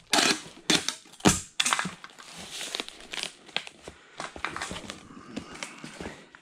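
Clear packing tape run off a handheld tape-gun dispenser onto a cardboard box and torn off, with the cardboard and tape crinkling as the box is handled. A few sharp rips come early, the loudest about a second and a half in, then lighter rustling and crackling.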